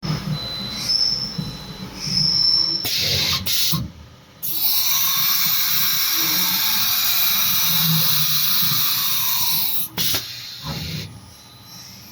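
AK6060H CNC metal-carving router at work: a thin, steady high whine at first, then loud hissing that comes in twice, the second time for about five seconds, over a low machine rumble.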